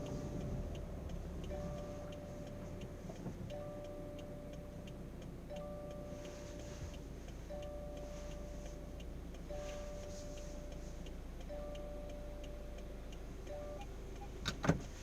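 Car cabin with the engine running. A pitched electronic warning tone sounds for about a second every two seconds, with faint rapid ticking beneath it. A sharp clunk comes near the end.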